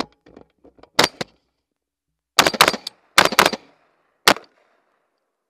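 Norinco CQ-A 5.56 mm AR-15-type carbine with a 10.5-inch barrel firing: two shots about a second in, then two quick strings of several shots, and a last single shot near the end.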